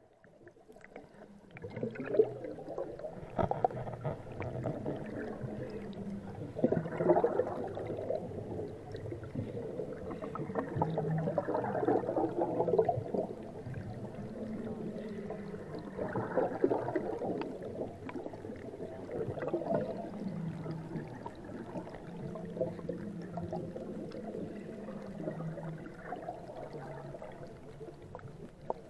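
Water churning and gurgling as heard by a submerged camera in the live well of a rotary screw fish trap, a steady rushing that swells and fades.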